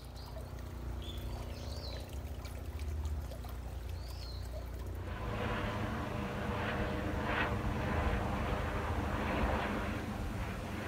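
An aircraft passing overhead: a low engine drone that grows steadily louder, joined about halfway through by a rushing noise. Small birds chirp a few times in the first half.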